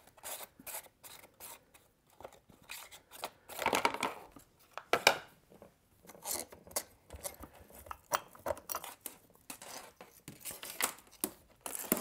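Clicks, scrapes and light metallic rattling as the toolless chain-adjuster knob is unscrewed from a STIHL MS180C chainsaw and the bar and chain are lifted off, with a couple of louder scraping rustles in the middle.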